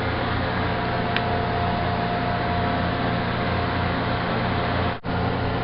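Steady mechanical hum and hiss, with a faint thin tone through the middle; it drops out for an instant about five seconds in.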